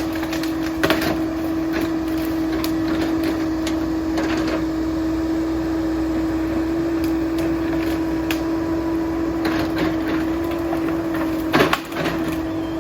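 Caterpillar 308 excavator running at a steady hum while clearing brush, with scattered sharp cracks and knocks of branches and deadfall breaking and a heavier knock near the end.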